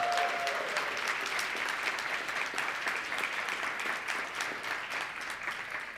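Large audience applauding, a dense patter of clapping with a shout carrying over it at the start, slowly dying down toward the end.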